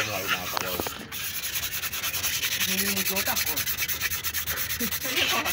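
Abrasive pad scrubbed by hand against the wall of a diesel engine's cylinder liner bore, in quick, even back-and-forth strokes.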